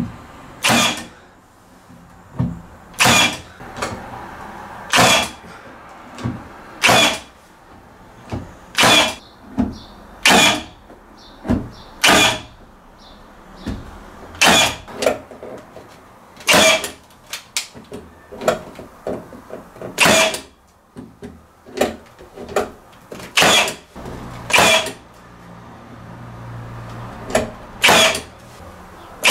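Cordless HiKoki nailer firing nails into pine stair spindles: about twenty short, sharp shots at irregular intervals of one to two seconds.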